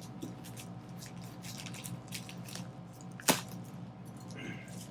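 Packaging being handled and opened, with scattered faint rustling and crinkling and one sharp click a little over three seconds in, over a steady low hum.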